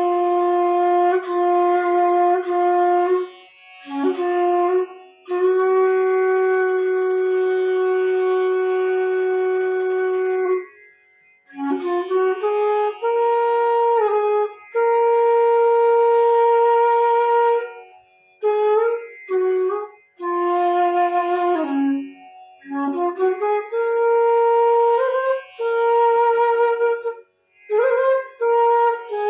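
F-sharp bass bamboo flute (bansuri) played solo in a tone and tuning check. It holds long steady notes, one lasting about five seconds, then plays phrases that slide up to higher notes, with short breaths between them.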